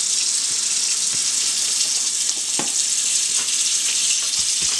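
Kitchen faucet running a steady stream of water into the sink and onto a crab, with a few faint knocks about halfway through and near the end.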